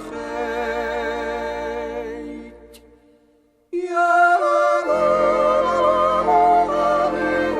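Music of a Swiss yodel song: a wordless, wavering melody over steady low notes. It dies away about two and a half seconds in and, after a second of silence, starts up again just under four seconds in.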